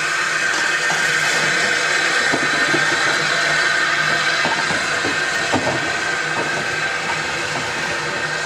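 Small tank steam locomotive hissing steadily with escaping steam, with a few light metallic knocks about halfway through.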